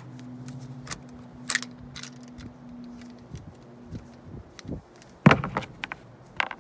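Metal clicks and clacks of an Intratec Tec-22 .22 LR pistol and its magazine being handled, with the loudest clack about five seconds in. The magazine is failing to feed, its spring stuck in the down position. A low steady hum underneath stops about halfway.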